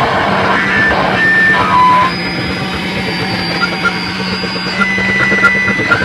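Live harsh noise music from electronics, mixers and effects pedals played through small amplifiers: a loud, dense wall of distorted noise. It carries a steady low drone and short high held tones that jump from pitch to pitch.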